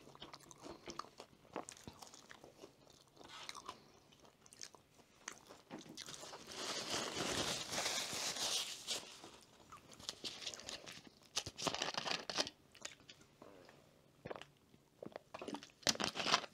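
Close-up eating sounds: soft crunching and chewing of fries, in short scattered bites. About halfway through, a paper napkin rubs across the mouth for a couple of seconds.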